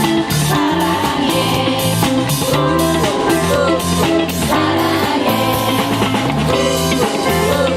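Live pop song performance between sung lines: drum kit keeping a steady beat with guitar and band accompaniment, and a little singing over it.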